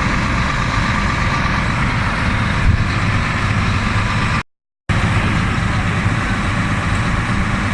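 New Holland CR9090 combine's engine running steadily. The sound cuts out for about half a second a little past halfway.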